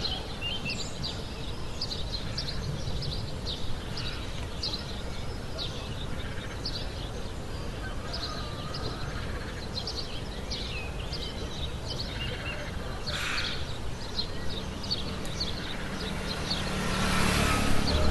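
Outdoor ambience with many short, high bird chirps. Near the end a motor scooter's engine approaches and grows louder.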